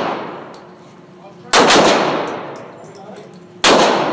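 Gunshots echoing in an indoor shooting range: two sharp shots about two seconds apart, each ringing off in a long echo, with the tail of an earlier shot fading away at the start.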